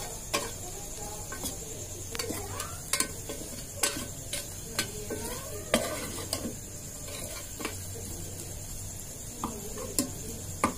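Metal spoon stirring and scraping frying onions and spices in an aluminium pressure cooker, with sharp clinks against the pot about once a second over a steady sizzle.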